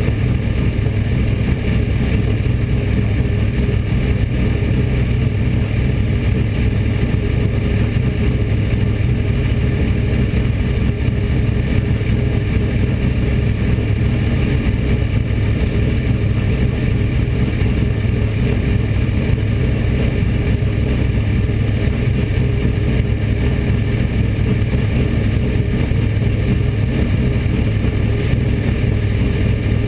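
Bomber-class dirt track race car's engine idling steadily, heard from inside the cockpit, with no revving.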